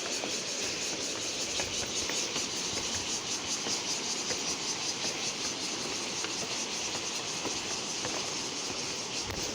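Steady rushing of water, with a high, fast-pulsing insect drone over it.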